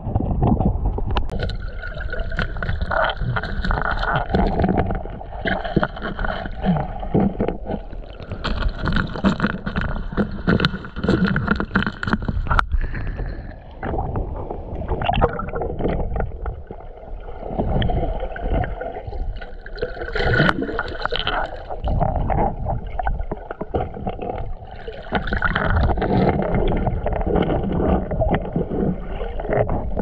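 Water sloshing and gurgling around a camera held at and just under the surface of a pool, heard muffled and churning with many small knocks, as water sounds through an underwater action camera.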